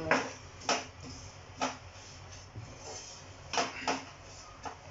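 A spatula scraping and knocking in a pan as dry-roasted coconut and spice powders are stirred, in about six separate, unevenly spaced strokes. The flame is off and the powders are toasting in the pan's leftover heat.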